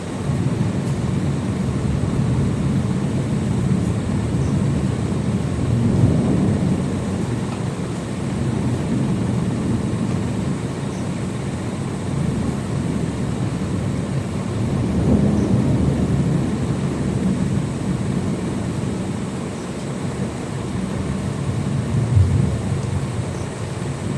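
Deep, continuous rolling thunder rumble with no sharp crack, swelling louder about six seconds in, again around fifteen seconds, and once more near the end.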